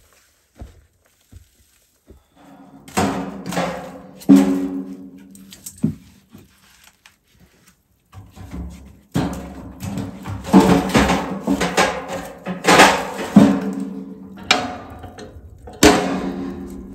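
Background instrumental music: a run of sharply struck chords, each ringing on, starting about three seconds in.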